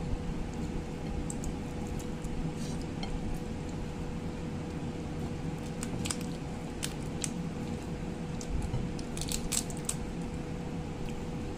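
Bare hands working crab pieces and rice in coconut-milk sauce on a ceramic plate: soft wet squishing with scattered sharp clicks, most of them around six to seven seconds in and again near nine to ten seconds, over a steady low hum.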